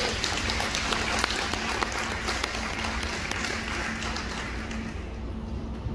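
Audience applauding, a crowd clapping that starts at once and dies away near the end.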